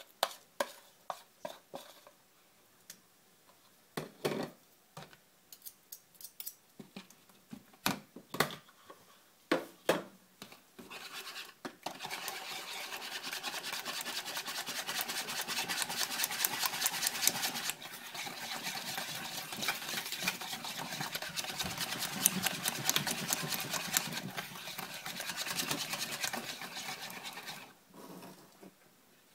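A spoon scraping and tapping a mixture out of a small bowl into a plastic mixing bowl, in scattered clicks. Then, from about a third of the way in, a wire whisk beats the egg batter fast, ticking rapidly against the sides of the plastic bowl, and stops shortly before the end.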